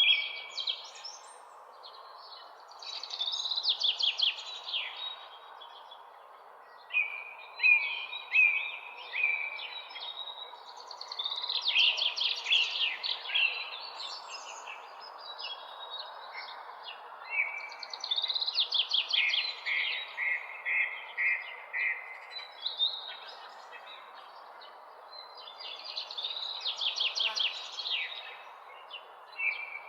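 Songbirds singing in the early morning, with chirped phrases and fast trills recurring every few seconds over a steady background hiss.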